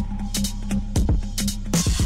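Electronic background music with a drum beat.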